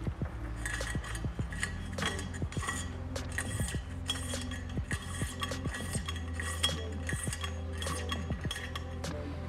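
Metal pull wire clicking and scraping against a metal handlebar tube as it is fed and pulled through, in quick irregular ticks, a few a second. Background music with a steady low bass runs underneath.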